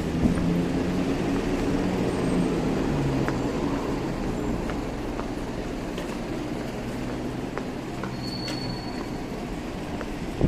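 A vehicle's low hum fades away over the first four seconds, over steady street noise.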